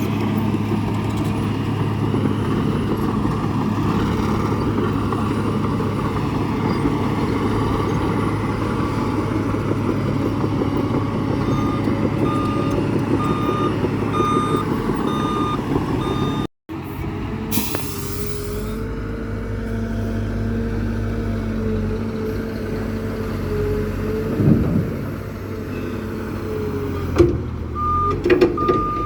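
Heavy construction vehicle's engine running steadily, with a reversing alarm beeping about twice a second in a run near the middle and again near the end.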